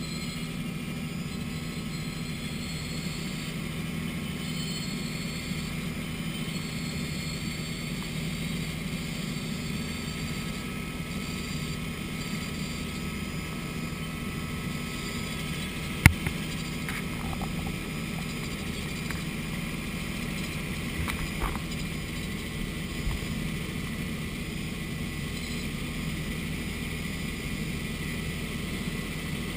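Steady drone of a tour helicopter's engine and rotors heard from inside the cabin in level flight, with one sharp click about halfway through.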